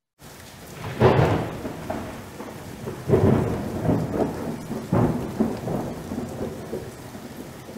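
Thunderstorm: heavy rain falling steadily, with loud thunder claps about one, three and five seconds in, the first the loudest, and lesser rumbles between.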